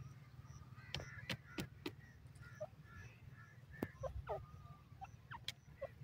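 Grey francolin giving a scattered series of short, sharp calls and brief falling notes, over a steady low rumble.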